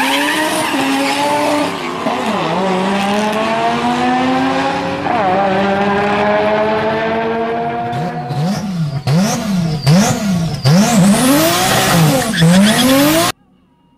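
Turbocharged car engine pulling hard, its pitch climbing steadily with two drops in pitch early on. From about eight seconds in, the revs rise and fall quickly over and over as the throttle is worked. The sound cuts off abruptly near the end.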